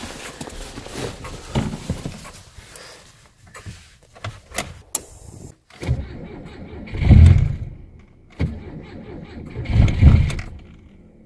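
Rustling and a few sharp clicks of handling, then from about six seconds in the starter cranks the Lada 2107's 1.5 turbo engine on a cold start. There are two cranking runs, each swelling to a loud low burst, and the engine does not settle into an idle.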